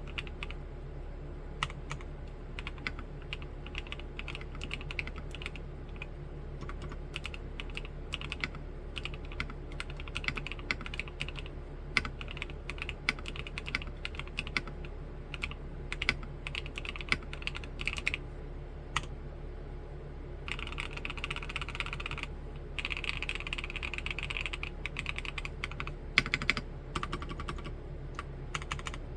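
Typing on an Omnitype BAUER LITE mechanical keyboard with Gateron Snow Rabbit switches in a clacky plastic housing: a steady stream of keystrokes, with a couple of denser, faster runs past the middle.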